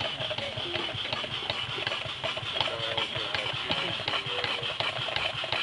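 Scale-model Case steam traction engine running on live steam, its engine and flywheel turning over with a quick, even mechanical beat and a steady hiss.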